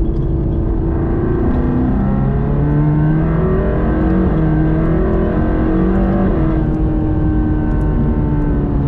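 Mercedes-AMG GT Black Series' 4.0-litre twin-turbo V8 heard from inside the cabin, running hard on track. Its pitch steps up and down, then falls steadily over the last couple of seconds.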